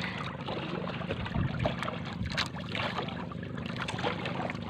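Sea water lapping and splashing against the outrigger float of a small boat, in short irregular splashes over a steady wash of water and wind.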